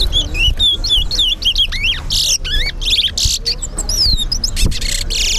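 Caged towa-towa seed finches singing in a whistling competition: fast strings of sweet whistled notes that slide up and down in pitch, with a few louder, richer notes mixed in.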